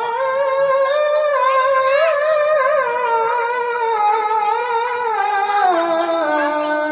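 A boy qari's voice in melodic Quran recitation (tilawah) through a microphone: one long unbroken phrase held high with small ornamental turns, sinking in steps toward a lower note near the end.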